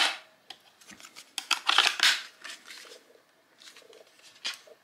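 AA batteries being pressed into the plastic battery tray of an RC car transmitter: a run of short plastic clicks and rattles, densest about two seconds in, with a few lighter clicks near the end.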